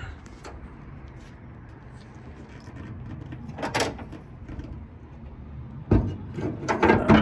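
A 1995 Toyota Corolla's hood being released and opened: a couple of light knocks, then a sharp clunk about six seconds in followed by a short run of knocks and rattles.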